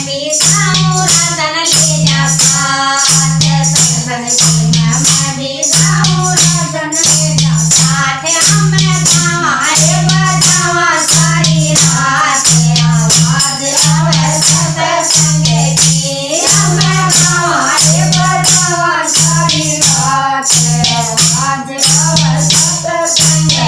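Haryanvi folk bhajan: a singing voice over jingling, rattling hand percussion keeping a fast even beat, with a low bass note that pulses about once a second.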